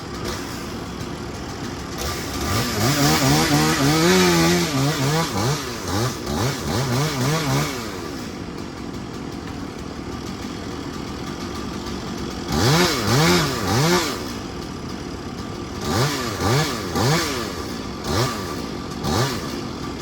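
Volvo EC140 excavator running, its engine and hydraulics rising and falling in pitch in repeated loud bursts as the machine works under load, with a steadier running sound between.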